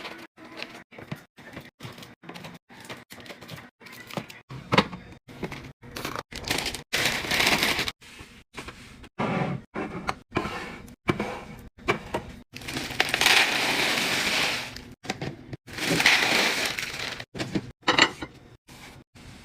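Snack packages and containers being handled and put away: quick clicks and knocks throughout, with several rustling, crinkling stretches of a second or two.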